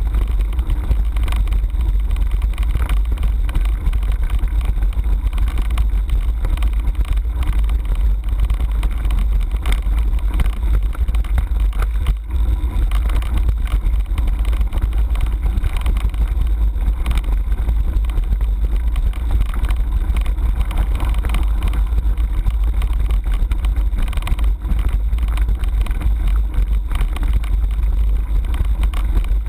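Mountain bike ridden over a loose stony dirt track: a steady low rumble of wind buffeting the handlebar camera's microphone, with constant rattling and clatter from the tyres and bike over the stones.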